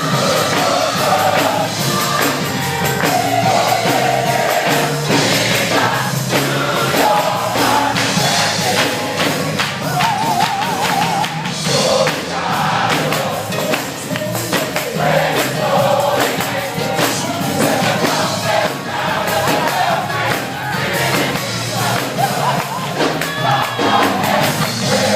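Gospel choir singing with instrumental accompaniment and percussion. One voice holds a wavering note about ten seconds in.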